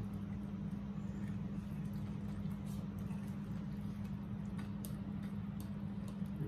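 Quiet eating sounds: chewing and scattered light clicks of a fork against a glass plate, over a steady low hum.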